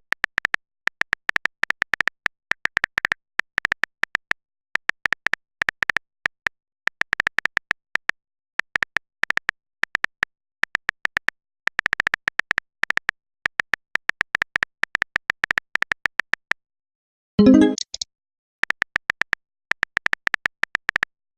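Rapid clicks of a smartphone's on-screen keyboard being typed on, in irregular runs with short pauses, and a brief message tone about three-quarters of the way through.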